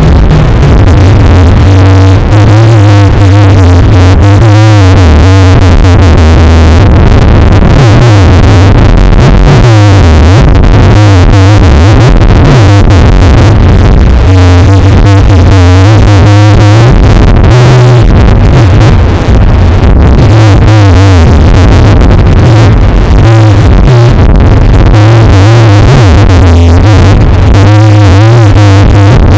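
Loud bass-boosted electronic music with a synthesizer, its heavy bass distorted and clipping throughout.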